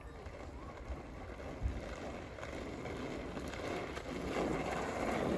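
Outdoor ambience with wind buffeting the microphone: a steady rushing noise and low rumble that slowly grows louder, with a single knock about a second and a half in.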